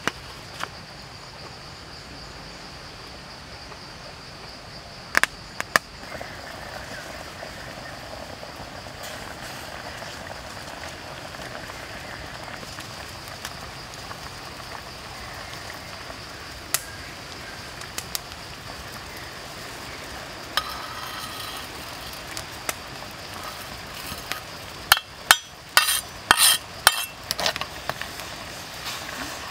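Soup simmering in an iron wok over a wood fire, a steady hiss with a few sharp clicks. Near the end a metal ladle clinks against the wok several times as the soup is stirred.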